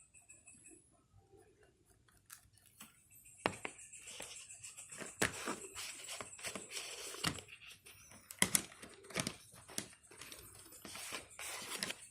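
Crinkly, papery material rustled and crumpled close by, in bursts with many sharp snaps and clicks, starting about three seconds in.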